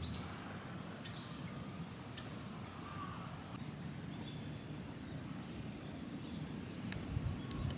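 Quiet outdoor ambience: a steady low rumble with a few faint, short bird calls.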